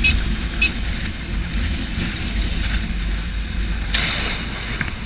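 Motorcycle riding through traffic: steady engine and road noise from the bike, with a brief louder rush of noise about four seconds in.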